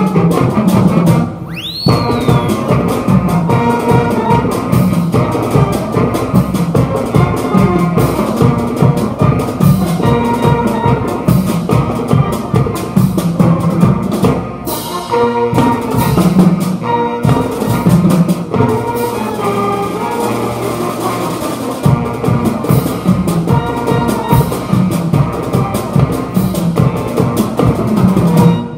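Band music with brass and drums over a steady beat, with a short sliding whistle-like tone about two seconds in; it cuts off at the end.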